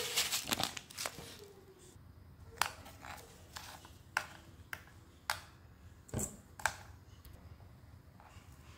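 A plastic seasoning packet crinkles briefly at the start, then about seven light, sharp clicks and taps come a half second to a second apart as seasonings are handled over a steel bowl of chicken wings.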